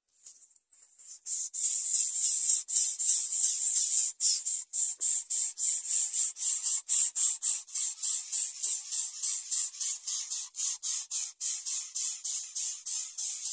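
Greater coucal nestlings begging for food with a rapid string of short, raspy hissing calls, about five a second, starting about a second in.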